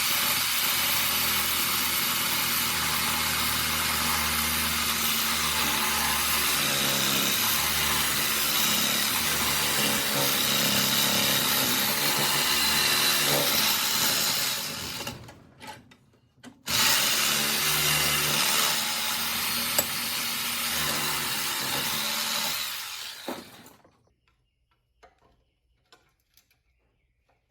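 Electric power tool cutting metal: it runs steadily for about fifteen seconds, stops, then runs again for about seven seconds before cutting off, followed by a few small clicks.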